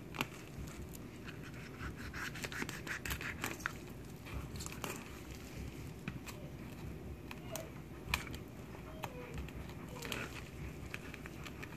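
Fillet knife cutting and scraping through a crappie on a cutting board: irregular small scratches and clicks as the blade works along the fish.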